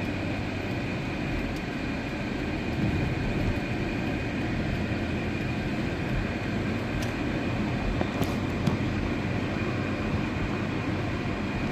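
Steady road and engine noise of a car driving, heard inside the cabin.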